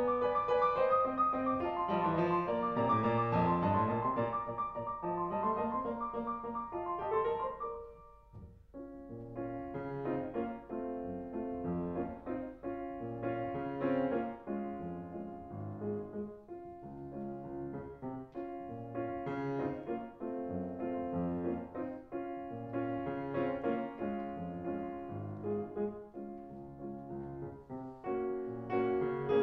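Background piano music, with a brief pause about eight seconds in before the playing resumes.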